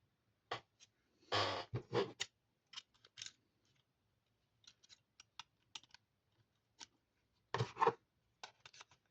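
Handling noise from a mobile phone: scattered light clicks and taps with short scraping rustles, the loudest about a second in and again near the end.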